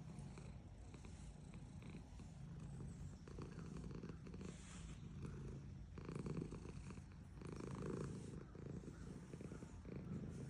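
Domestic cat purring continuously while being petted, a low rumble that swells and eases every second or two.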